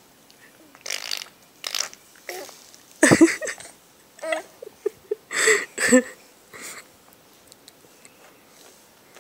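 Raspberries blown with the lips, mouth-made fart sounds, in a run of short separate bursts. The loudest come about three seconds in and again between five and six seconds.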